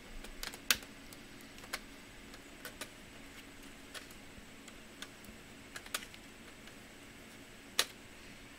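Irregular sharp clicks and ticks of a laptop being taken apart by hand, small tools and plastic parts knocking, about ten in all, with the loudest about a second in and another near the end.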